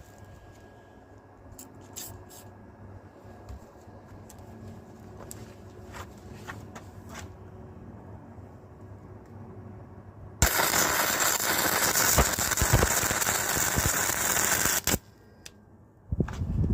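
Clarke 100NG gasless flux-core MIG welder arc crackling loudly for about four and a half seconds while welding two bolts together, with a second short burst of arc near the end. Before the arc strikes there are only faint clicks and handling sounds.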